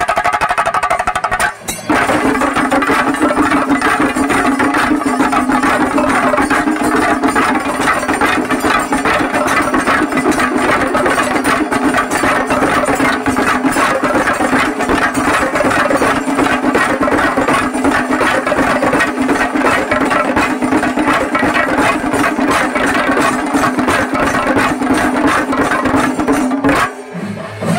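Festival percussion troupe playing fast, dense drumming over a steady low held note. It drops out for a moment about two seconds in, then runs on and stops just before the end.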